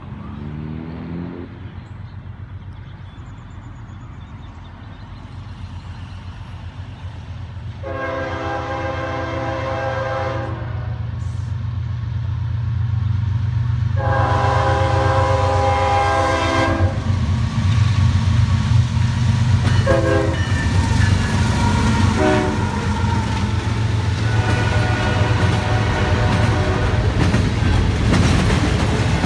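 Diesel locomotive air horn sounding two long blasts, then two short ones, as a GE-powered freight train comes up the grade. The locomotives' diesel engines rumble louder as they draw near and pass under load, giving way near the end to the rolling clatter of wheels under double-stack container cars.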